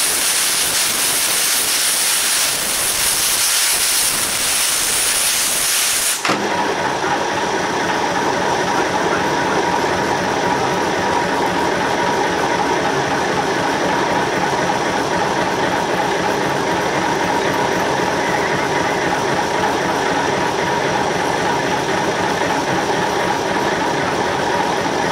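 Steam hissing loudly from a steam engine. About six seconds in it cuts off suddenly, and a steady machinery sound with a held whine takes over.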